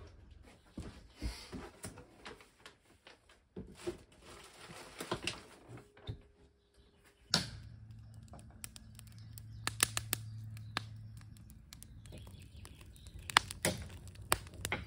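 Liquid running from a bucket's tap into a glass bottle, with splashes and light clinks of the bottle being handled. About seven seconds in, this gives way to an open wood fire crackling, with sharp irregular pops over a low steady hum.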